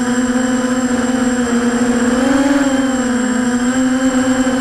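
Brushless motors and propellers of an EMAX 250-size FPV racing quadcopter, heard from its onboard camera: a loud, steady whine. Its pitch rises briefly about halfway through and then dips as the throttle changes.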